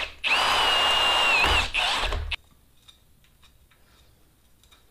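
Handheld electric drill boring into a metal plate, its motor whining steadily; it stops for a moment, starts again, sags in pitch as the bit bites about a second and a half in, then cuts off a little after two seconds. Faint clicks follow.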